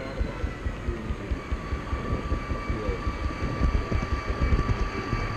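HO-scale model train rolling along the layout's track, heard from on board: wheels rumbling and clicking over the rails, with a steady high whine that drops slightly in pitch about a second in.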